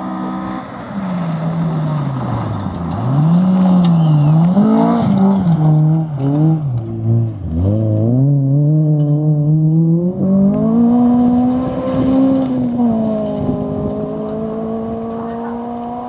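A rally car's engine revving hard on a gravel stage. The pitch swoops up and down, then falls sharply about seven seconds in as the driver lifts for a corner. It climbs steadily again as the car slides round and accelerates away, with a gear change a little after twelve seconds, and grows fainter toward the end.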